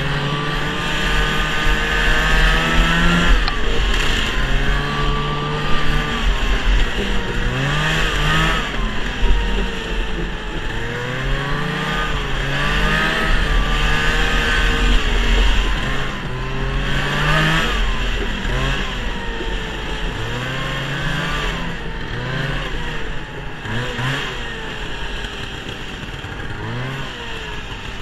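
1971 Ski-Doo TNT 640 snowmobile's two-stroke twin engine running under way, its pitch rising and falling again and again as the throttle is opened and eased, over a steady low rumble.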